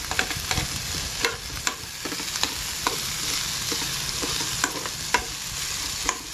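Onions, chillies, carrots and soaked moong dal frying in oil in a metal kadai, a steady sizzle, while a metal spatula stirs them with irregular scrapes and clicks against the pan.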